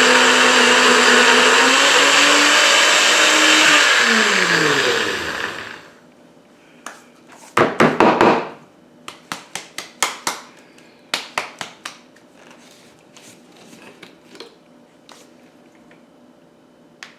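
Countertop blender grinding jalapeño Cheetos into crumbs: the motor runs steadily, then winds down with a falling pitch and stops about five seconds in. After it stops come a few sharp knocks and clicks, the loudest cluster about eight seconds in.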